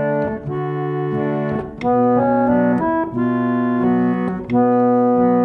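Harmonium playing slow sustained chords, changing chord every second or so.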